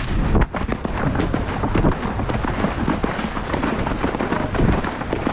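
Horse's hooves splashing through a cross-country water jump in a quick, irregular patter of splashes and spray. Heavy wind rumble on the helmet camera's microphone runs underneath.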